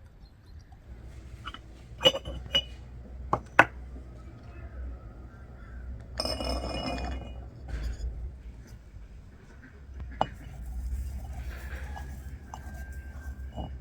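Glassware clinking: four sharp knocks a second or two apart early on, then a longer rattling clatter about six seconds in.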